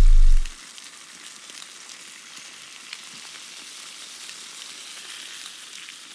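A deep bass tone sliding down in pitch, the end of the music, stops about half a second in. After it comes a steady crackling hiss with scattered small clicks.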